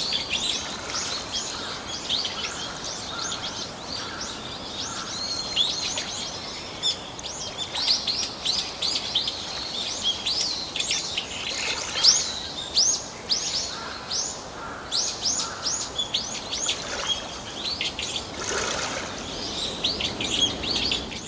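Small birds chirping and calling over and over in quick, high, sweeping notes, over a steady background rush of noise.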